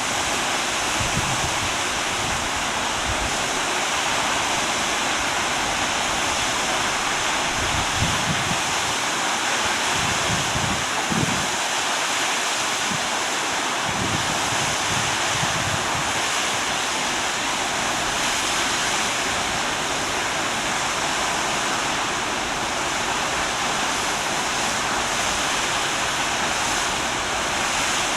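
Mills Creek Falls, a waterfall, pouring with a steady rush of falling water, with low wind rumble on the microphone now and then, most of it in the middle.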